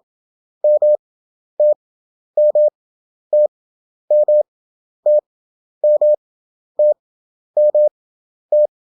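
Morse code (CW) practice tone: a single steady beep keyed at 27 words per minute with wide Farnsworth spacing (11 wpm effective). A two-character European country abbreviation is sent five times in a row, each character a quick cluster of beeps with long gaps between.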